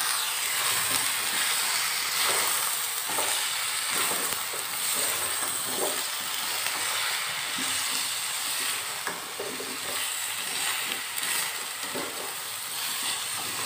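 Pieces of potato, pumpkin and drumstick sizzling in mustard oil in a pan, with a steady hiss. A slotted spatula stirs and tosses them, scraping the pan in irregular strokes.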